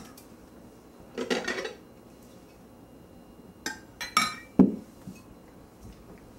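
Kitchenware clattering as a metal saucepan with a spoon in it and a plate are handled and set down on a table. A jumble of clinks comes a little over a second in, then a few sharp clinks and a hard knock, the loudest sound, a little past four and a half seconds in.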